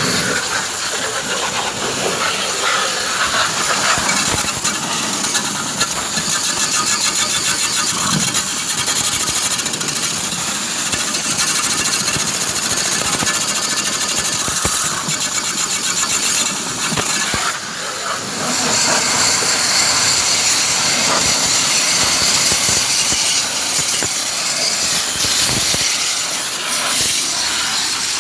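Steady loud hissing with a motor running underneath.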